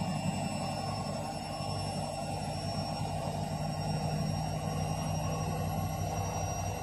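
Bosch front-loading washing machine (6 kg) running on its spin/drain cycle: a steady hum with a faint high whine and no change in pace.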